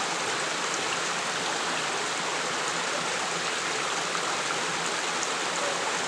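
Small waterfall on a burn pouring into a pool, a steady rush of water. The flow is light because the weather has been dry recently.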